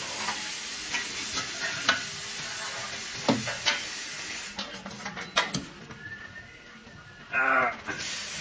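Metal knocks and clinks as a steel exhaust pipe and its band clamp are handled and fitted together, over a steady high hiss. A short pitched sound, like a brief voice, comes near the end.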